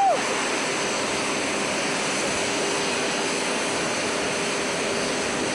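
Jet aircraft engine running steadily: an even, hissing rush with a faint steady whine joining about two seconds in.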